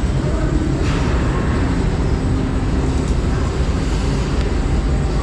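Roller coaster train running along the track, heard from the front seat as a loud, steady rumble with wind noise on the microphone.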